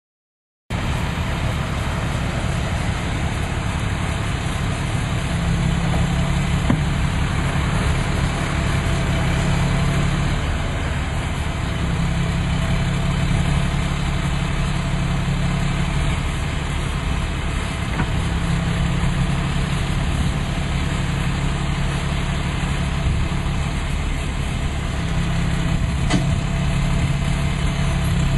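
Truck engine powering a Big John Model 100D tree spade, running steadily from about a second in, with a deeper low drone that swells in and drops away four times, each time for several seconds.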